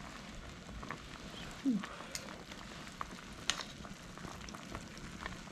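Food cooking on the stove: a steady sizzle with scattered small pops and crackles.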